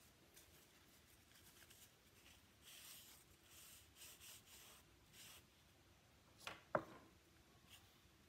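Soft rubbing strokes of a wet paper towel wiping excess PVA glue off a glued pine block, several in a row. Near the end comes one sharp click, the loudest sound, as a plastic quick-grip bar clamp is handled.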